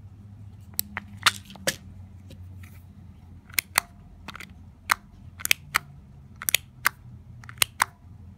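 Hard plastic clicks from a push-and-turn child-resistant pill bottle cap being twisted on the bottle, about fourteen sharp clicks, often in quick pairs, as the cap's day indicator advances.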